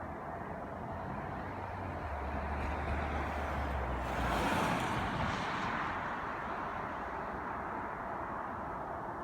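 Jet airliner passing on approach to land: a steady rush of engine noise with a low rumble that swells to its loudest about four to five seconds in, then eases back.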